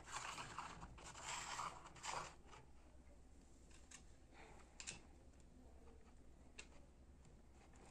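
Faint handling noise: rustling for about the first two and a half seconds, then a few small, sharp clicks, the loudest about five seconds in, as a hand works near the base of the lamp.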